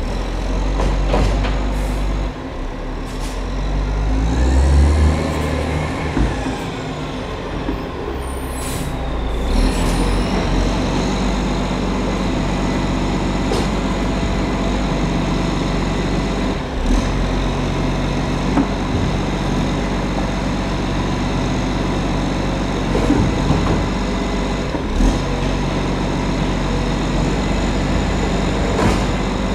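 Diesel recycling truck pulling up: its engine revs up and eases off, then about nine seconds in there is a sharp air-brake hiss as it stops, and the engine settles into a steady idle.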